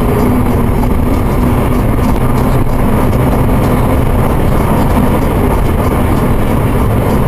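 Subaru Legacy with the EZ30 flat-six engine cruising fast, heard from inside the cabin: a steady engine drone under loud tyre and road noise.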